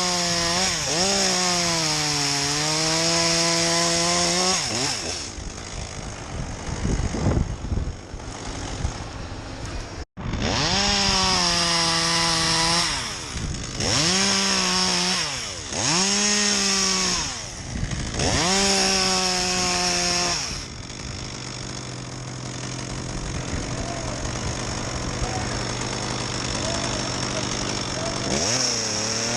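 Chainsaw revving hard in several bursts of a few seconds each, its pitch dipping and holding during each burst, likely as the chain bites into wood, and dropping back between them. It idles steadily through the last third, then revs up again at the very end.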